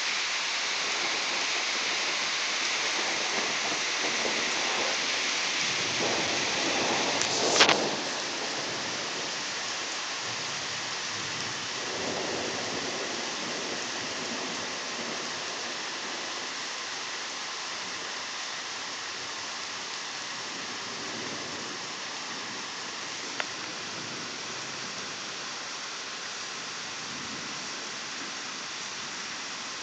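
Steady rain falling through a thunderstorm, with thunder rumbling. A rumble builds to a sharp thunderclap about seven seconds in, the loudest moment, and a weaker rumble follows a few seconds later.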